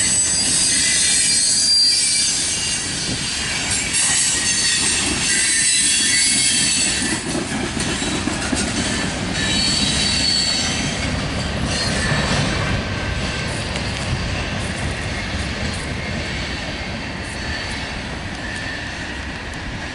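Freight cars' steel wheels squealing high on the rails and clacking over the track as the last cars of a freight train roll past. The squeal is strongest in the first several seconds, flares once more about ten seconds in, and the whole sound slowly fades as the train moves away.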